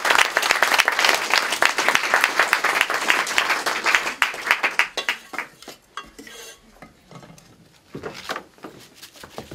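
Audience applauding, a dense patter of many hands clapping that fades out about halfway through, followed by a few soft knocks and shuffles.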